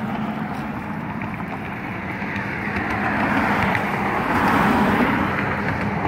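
Street traffic: a vehicle's engine and tyres running on the road, with a steady low hum, growing louder about three seconds in.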